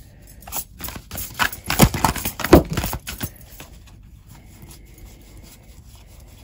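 Hands handling a tarot deck at a table: a quick, irregular run of clicks and knocks for about three seconds, loudest about two seconds in, then quiet.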